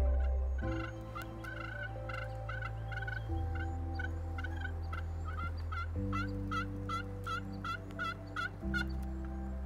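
A turkey calling in a long run of short, sharp notes, about two or three a second, that stop shortly before the end. Soft ambient music with held chords plays underneath.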